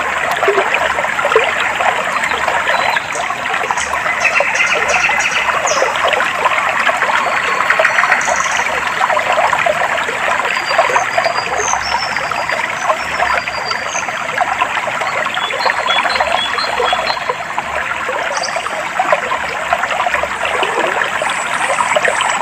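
Shallow stream of clear water trickling and babbling steadily, with faint, high, short bird chirps scattered over it.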